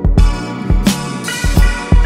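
Background music: a drum beat with heavy bass-drum hits comes in suddenly at the start, over held instrumental notes.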